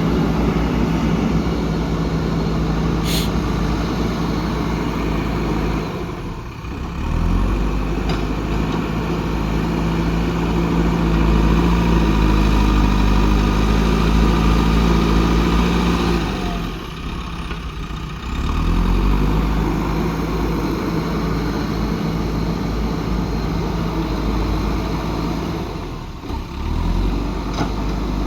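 JCB 3DX backhoe loader's diesel engine working under hydraulic load as it digs and loads, its note rising and falling in a repeating cycle with a brief drop about every ten seconds. A short hiss sounds about three seconds in.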